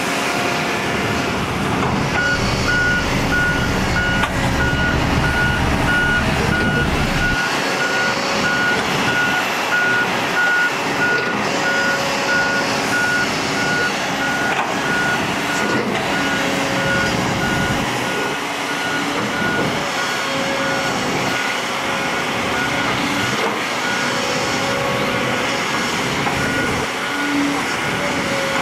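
A heavy construction machine's reversing alarm beeping at a steady, even pace, starting about two seconds in, over the running diesel engines of a dump truck and padfoot soil compactor rollers. A deep engine rumble cuts off about seven seconds in.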